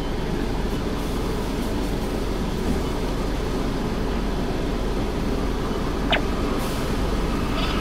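Steady low rumble heard inside a car idling in the queue at an automatic car wash, with the wash machine working ahead; a single short click about six seconds in.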